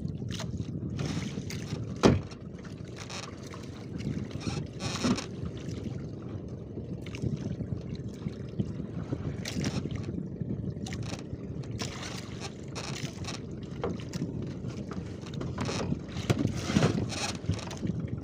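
Outrigger fishing boat (banca) on open sea: a steady low rumble of water and wind around the hull, broken by a few short splashes or knocks, the sharpest about two seconds in.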